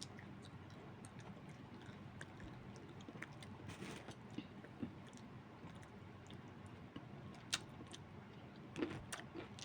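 Quiet eating sounds: faint chewing with scattered small clicks, the sharpest about seven and a half seconds in and a few more close together near the end.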